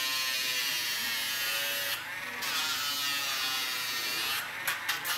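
Dremel rotary nail grinder whining steadily as it grinds a dog's toenail, dropping off briefly about two seconds in. Several sharp clicks come near the end.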